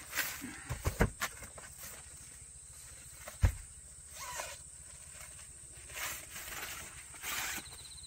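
Knocks and clatter of folding car-camping leveling boards being lifted and handled in an SUV's cargo area: a cluster of knocks in the first second, a single sharp knock about three and a half seconds in (the loudest), then softer rustling scrapes as the panels are unfolded.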